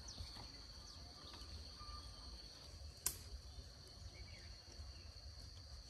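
Faint outdoor ambience under a steady, high-pitched insect drone. A single sharp click about three seconds in is the loudest sound.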